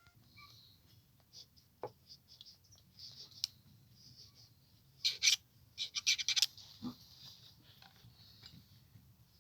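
Scratching and scraping, like small parts rubbed or handled, with a cluster of sharp clicks about five to six and a half seconds in.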